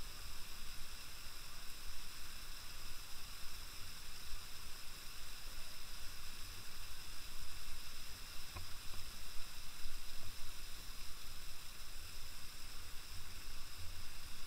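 Waterfall's steady rushing hiss, with an unsteady low rumble underneath.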